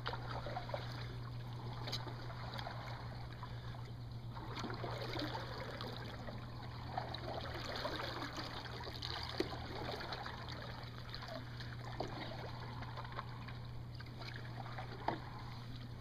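Paddles dipping and water trickling and lapping against the hull of an outrigger canoe under way, with small splashes and knocks scattered throughout over a steady low hum.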